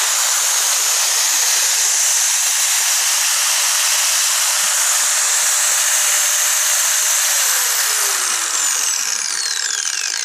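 Makita 9533B 100 mm disc grinder running free with no load, a loud steady high whirring hiss. From about seven seconds in, its whine slides steadily down in pitch as the motor and disc wind down.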